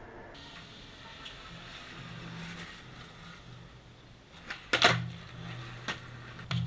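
Skateboard wheels rolling on a hard surface, then sharp wooden clacks of the board: a loud pop-and-land pair just under five seconds in, with a few more knocks after.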